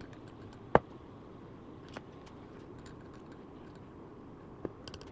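Quiet room tone broken by a few sharp clicks: one loud click about a second in, a faint one near two seconds and a small cluster near the end.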